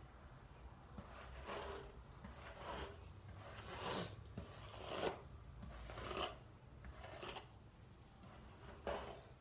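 Bristles of a plastic detangling hairbrush pulled through long hair: a series of brushing swishes, about one a second.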